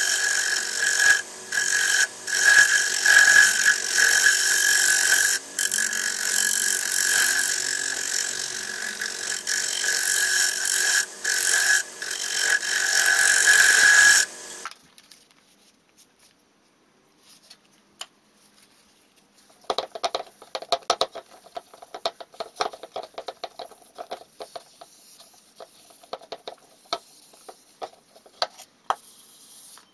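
Wood lathe running with a turning tool cutting the outside of a large jacaranda bowl, a loud, steady scraping with a few short breaks where the tool lifts off; it stops abruptly about halfway through. Some seconds later comes quick scratchy rubbing of a pad working oil into the bowl's surface.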